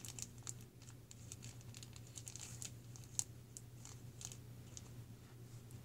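Faint, irregular clicks and rustles of small plastic Littlest Pet Shop figures and playset pieces being handled and moved about, with one sharper click about three seconds in, over a low steady hum.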